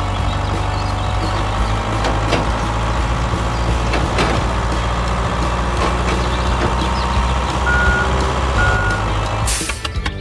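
Small motor-driven model machine running with a steady whirring hum and scattered clicks. Two short beeps come about eight seconds in, and the sound cuts off abruptly near the end.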